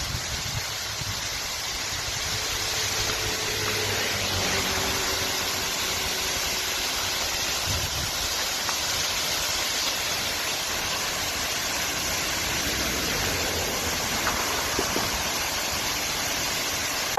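Steady rush of water pouring down the Khorfakkan Waterfalls, a man-made cascade.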